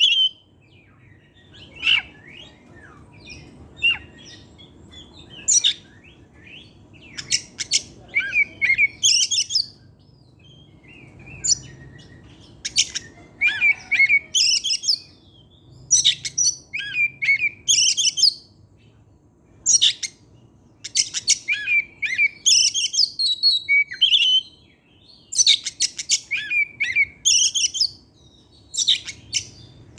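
Oriental magpie-robin (kacer) singing in full voice: rapid, high, varied phrases of a second or two with short pauses between them, thicker from about halfway through. The song includes the learned and mimicked phrases that keepers call 'materi'.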